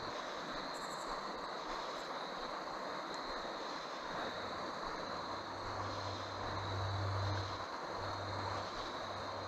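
Steady rush of a river flowing over rocks, with a thin steady high tone above it.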